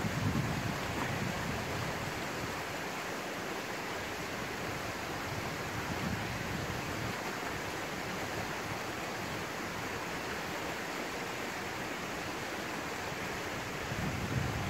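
Steady outdoor wind noise on a phone microphone, with low rumbles of wind buffeting the microphone near the start and again near the end.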